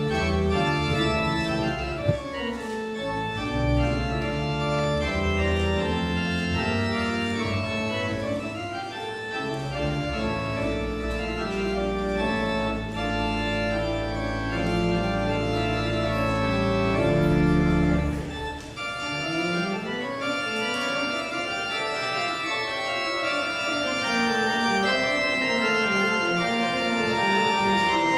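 Organ music: full sustained chords over low held bass notes, the bass dropping out about two-thirds of the way through, leaving quicker running lines in the upper voices.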